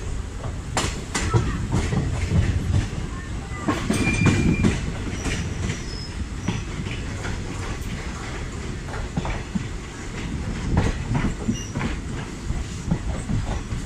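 Passenger train coaches rolling along the track, heard from the open doorway: a steady rumble with irregular clacks as the wheels cross rail joints and points, and a short squeal about four seconds in.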